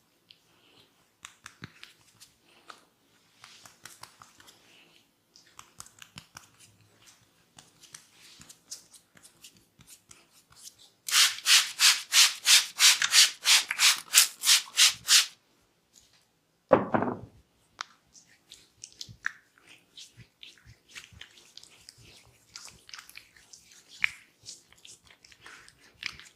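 Massage strokes of hands rubbing over skin and hair, soft and irregular at first, then a loud, even run of quick rubbing strokes at about four a second lasting some four seconds. A short dull thump follows, then softer rubbing again.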